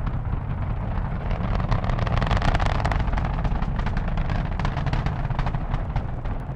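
Space Shuttle Columbia's launch roar heard from miles away: a deep, continuous rumble from the solid rocket boosters and three main engines, laced with sharp crackling, swelling a little about two seconds in.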